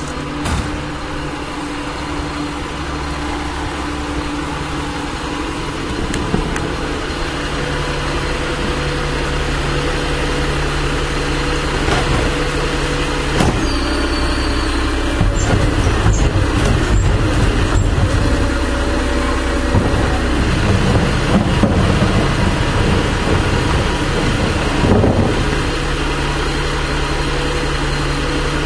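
1996 Volvo WX64 garbage truck's diesel engine running at a steady idle, growing louder and rougher from about halfway in, then settling back to a steady idle near the end. A couple of sharp knocks come just before the louder stretch.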